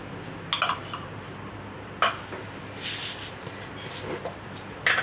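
Metal spoon clinking a few times against a stainless-steel kadhai while desi ghee is scooped into the oil, with short sharp clinks over a steady low hiss.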